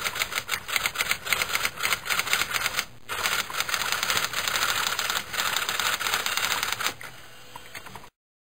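Typewriter sound effect: a fast, continuous run of key clicks, with a short break about three seconds in, thinning out near the end before cutting off abruptly.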